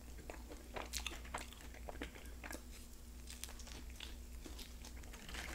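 Close-miked chewing and biting into a chicken quesadilla: faint, irregular mouth clicks and soft crunches.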